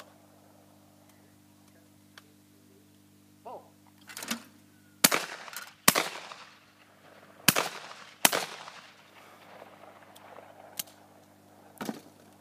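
Shotguns firing at clay targets: four sharp blasts in two quick pairs, each trailing off in an echo.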